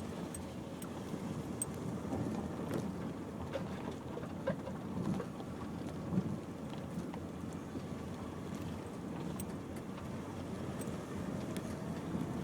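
Inside an SUV's cabin as it drives slowly along a rough, unsurfaced track: steady engine and tyre rumble, with scattered clicks and knocks from stones and the bodywork.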